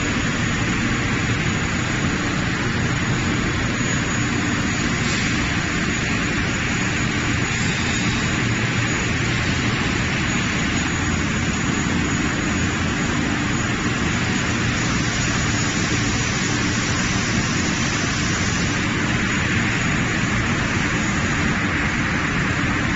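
Steady, unbroken machine noise from a fried-snack production line running: motors, conveyors and cooling fans of the processing machines together.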